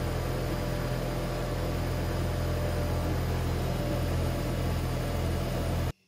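Gweike Cloud CO2 laser engraver running as it cuts: a steady, loud machine hum with an even hiss over it. It cuts off suddenly near the end.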